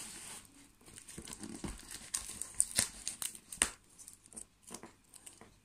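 Packing material being handled while unpacking a parcel: paper and plastic crinkling and rustling, with a run of sharp crackles, loudest a little past the middle.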